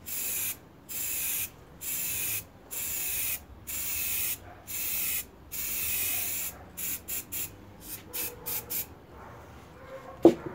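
Aerosol spray-paint can spraying in about seven short hissing bursts, then a quicker run of brief puffs. A single sharp knock near the end.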